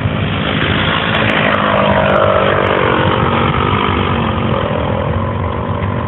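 Radio-controlled J3 Cub model airplane's motor running at high power during takeoff and climb-out, a steady propeller buzz whose pitch rises and then falls away as the plane flies off.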